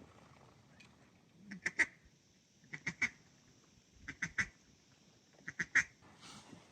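Duck quacking in four short bursts of two or three quick quacks each, a second or so apart.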